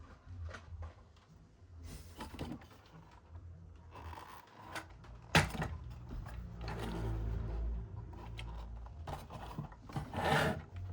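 Toys and their packaging being handled: rubbing, scraping and clicking, with one sharp knock about five seconds in.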